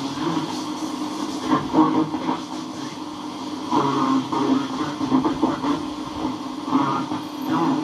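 AM radio broadcast received by a home-built receiver with a diode envelope detector and played through its loudspeaker: a voice-like programme under a steady hiss of noise.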